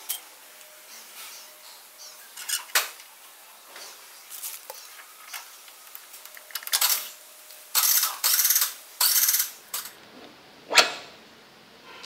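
Metal clinks and scrapes of a motorcycle's steel rear axle spindle and chain adjuster cam being worked into the wheel hub and swingarm by hand. There are scattered light knocks, two longer scraping sounds about two-thirds through, and a single sharp metallic knock near the end.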